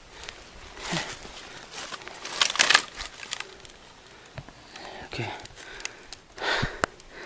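Irregular crunching and rustling of footsteps through dry grass and leaf litter, loudest about two and a half seconds in.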